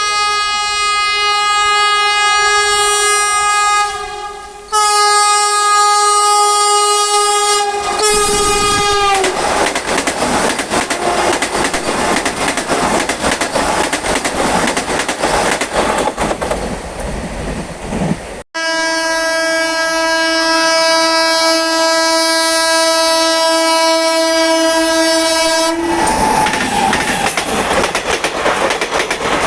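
Indian Railways train horns sounding loud and sustained: three blasts over the first nine seconds, then the rumble and clickety-clack of a passing train. After an abrupt cut about 18 seconds in, a different, lower-pitched horn holds for about seven seconds before the train noise returns.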